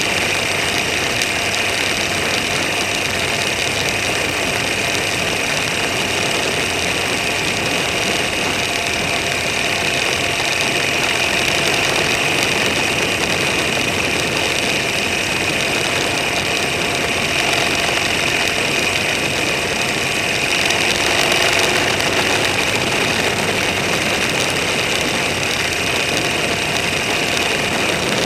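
Vehicle on the move, with a steady engine drone under a constant hiss of road and wind noise.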